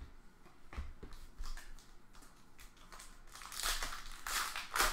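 Trading cards handled with a few light clicks, then a foil trading-card pack wrapper crinkling as it is pulled and torn open, in a run of louder rustles over the second half.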